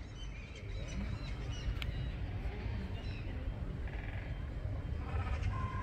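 People's voices in the background with scattered short bird calls over a steady low rumble.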